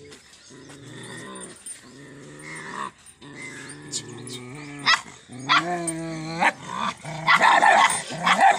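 Pandikona dogs at a wire-mesh fence growling in low, drawn-out runs of about a second each, then one longer wavering growl, and near the end a louder, rapid flurry of barks and growls.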